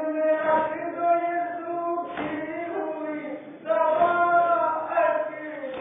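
A group of men's voices chanting a Muharram nauha (lament) together in long held notes, with a few sharp hand slaps on the chest (matam) cutting through the chant.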